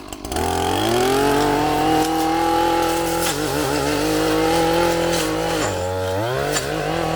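Bobcat tracked skid steer's diesel engine throttling up from idle and running hard under load as it pushes a tree down. Its pitch rises in the first second, holds, then sags about five and a half seconds in and climbs again.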